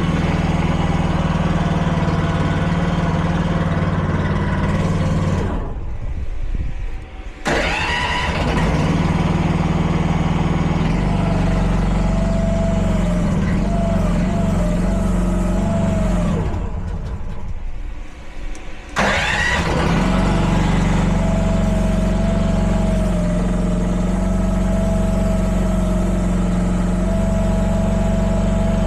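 Mini excavator's small lawnmower-type gasoline engine running on the choke, stalling twice and catching again each time, then settling into steady running.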